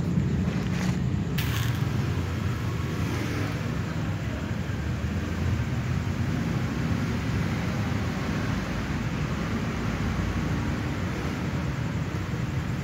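Steady low rumble, with a couple of sharp clicks about a second in.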